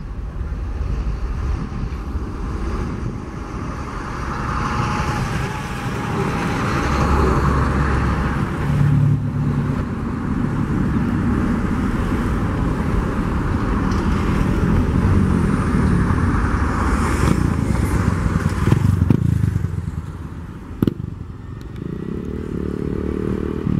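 Airbus A320's twin jet engines at takeoff power as the airliner rolls, lifts off and climbs away. It is a loud, steady rumble with a hiss above it, a little fainter near the end.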